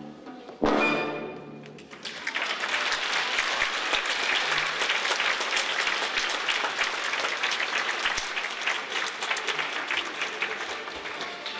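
The ballet's live orchestra ends a number with one loud final chord that dies away, then the audience applauds for about nine seconds, the clapping thinning out near the end.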